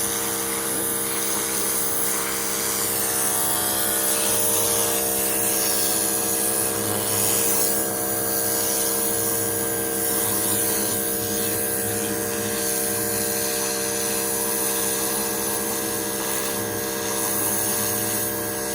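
Pressure washer running steadily, its motor drone joined by the hiss of the water jet spraying.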